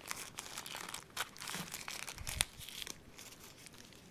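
Plastic packaging crinkling and rustling as a phone accessory, a micro USB cord, is unwrapped by hand. There is a dull thump with a sharp click a little past two seconds in.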